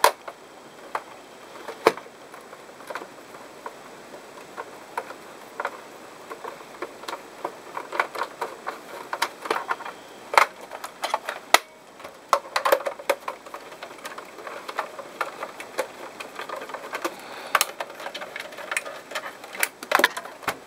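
Precision screwdriver working screws out of a Nintendo GameCube's plastic case: a steady run of irregular small clicks and ticks from the bit in the screw heads, with a few louder sharp knocks as the plastic shell and the tool are handled and set down.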